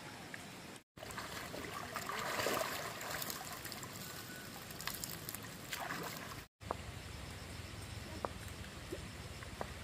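Water trickling and splashing, broken twice by abrupt short dropouts, with a few sharp knocks in the last few seconds.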